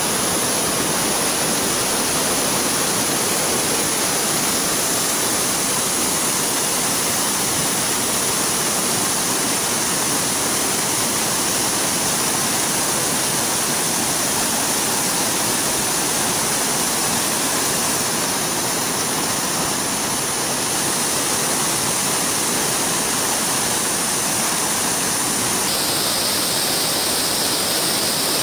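Whitewater river rapids rushing: a loud, steady noise of fast water over rocks.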